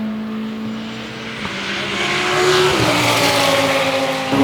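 Audi R8 LMS Ultra race car's V10 engine running: a steady note at first, then louder from about two seconds in, its pitch climbing and dropping abruptly just before three seconds in, followed by a higher note that slowly falls.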